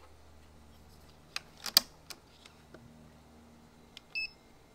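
A few sharp mechanical clicks as a digital trigger scale is drawn against an air rifle's trigger, the loudest about two seconds in, then a short high electronic beep near the end.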